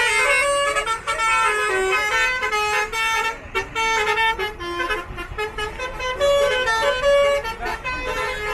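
Bus telolet horns: multi-note air horns tooting quick runs of stepped notes that change pitch several times a second, like a short tune.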